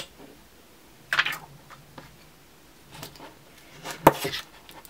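Hands handling a new smartphone and peeling off its plastic protective film: a few sharp clicks and short crinkling, rustling bursts, the loudest about a second in and near four seconds in.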